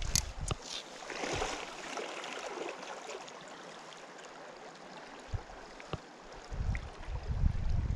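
Creek current rushing and rippling past the bank, with a low rumble at the start and again near the end, and a few faint clicks.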